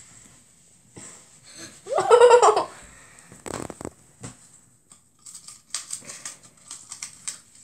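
A child giggles briefly about two seconds in. This is followed by light rustling and scratchy clicks as a cardboard toilet-roll tube and a gerbil are handled.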